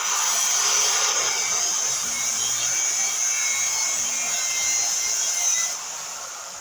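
A power tool cutting through the steel steering column, a steady hissing cut with a high whine, which stops near the end and fades away.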